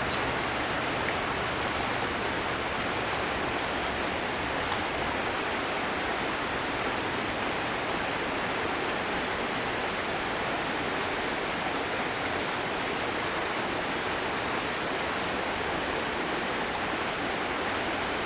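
Steady rushing of stream water flowing past the angler: an even hiss that does not change.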